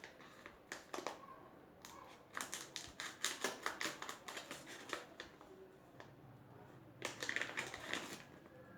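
Cheap headphones' plastic packaging being handled and opened by hand: crinkling and sharp clicks, in a cluster about two to four seconds in and again about seven to eight seconds in.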